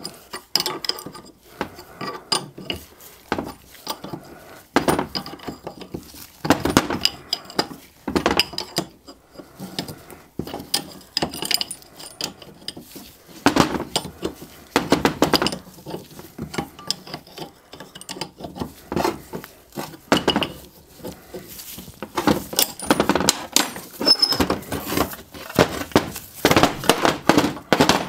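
Hand tools, locking pliers and a spanner, clinking and knocking against the iron body of a Sentinel steam waggon regulator valve as it is taken apart, in irregular metallic clanks. The clatter comes thicker near the end as the heavy casting is turned over on the steel bench.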